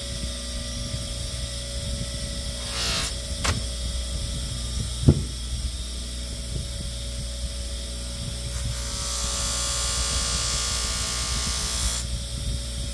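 Electric bench polisher running with a steady motor hum. There is a short scrape and a sharp knock around the middle, then a brighter hiss for about three seconds near the end.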